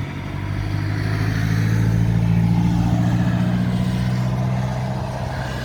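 A motor vehicle's engine running close by, a steady low hum that grows louder over the first couple of seconds and then slowly eases off.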